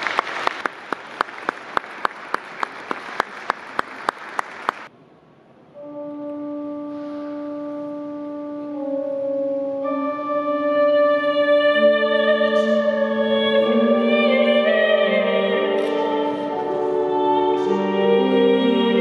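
Congregation applauding, with a steady beat of claps standing out, cut off about five seconds in. After a short silence a small string ensemble begins slow music, long held notes entering one above another and building in layers.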